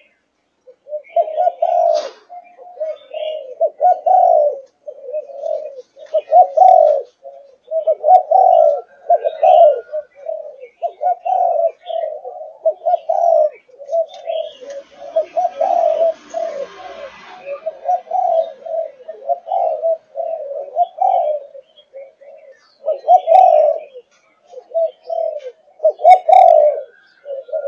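A young spotted dove of a Malaysian cu gáy line, about five and a half months old, giving a rapid, nearly unbroken run of short low coos in the thúc gù (pushed bow-coo) style.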